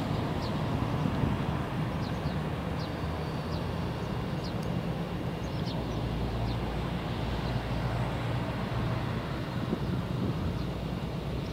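Steady low rumble of road traffic and moving air, with scattered brief high chirps every second or so.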